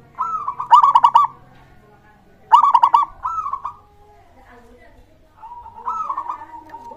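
Zebra dove (perkutut) singing its cooing song: three phrases, each a quick rolling run of notes, the third fainter and ending in a drawn-out level coo.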